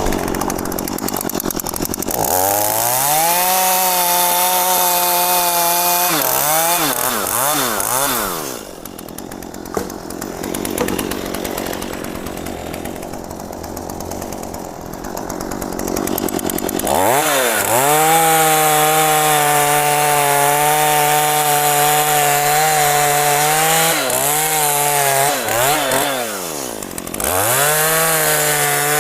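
Two-stroke chainsaw cutting mahogany wood, revved to full throttle twice, about two seconds in and again after about seventeen seconds. Its pitch sags and wavers as the chain bogs in the cut, then it drops back to a lower, rougher running between the cuts, and it revs up once more near the end.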